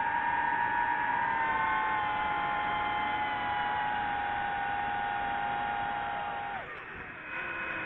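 Multirotor drone's propellers whining steadily as several close tones that drift slightly in pitch. About six and a half seconds in, the motors drop away and go briefly quieter, then spin up again in a rising whine near the end.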